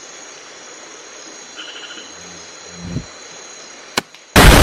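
Steady night chorus of crickets and insects. About four seconds in comes a sharp click, then a rifle shot: a very loud blast lasting about a second that cuts off abruptly. This is the second shot at the bird, and it hits its target.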